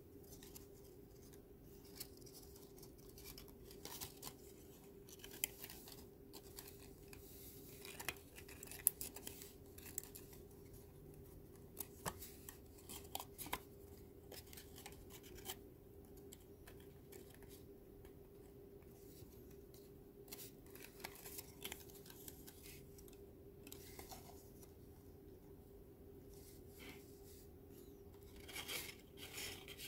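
Thin white Kent card being handled, folded and slotted together: scattered soft clicks, crinkles and scrapes of stiff paper, a few sharper snaps as parts are pressed into place, over a faint steady hum.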